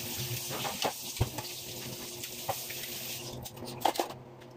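Kitchen tap running into the sink during washing up, with a few clinks and knocks of dishes. The water shuts off about three seconds in, followed by a couple more knocks as dishes are handled.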